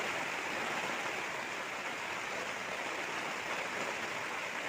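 Heavy rain falling on a tent's roof, heard from inside the tent as a steady hiss.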